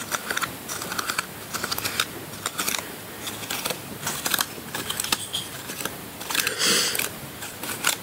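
Cardboard tube being handled as its cut flaps are pressed outward, making a run of irregular light clicks and creases, with a longer rustle near the end.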